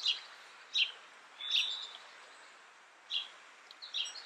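Small bird chirping: short high calls about once a second, one a little longer about a second and a half in, over a faint steady hiss.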